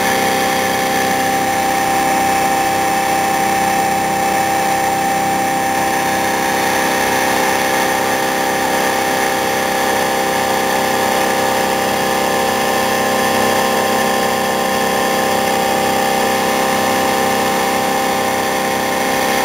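Home-built iron-core axial flux pulse motor running at a steady speed: a constant machine hum with a steady whine over it, stopping abruptly at the very end.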